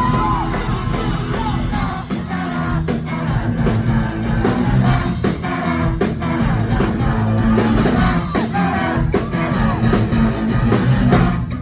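Live pop-rock band playing with sung vocals over a steady drum beat.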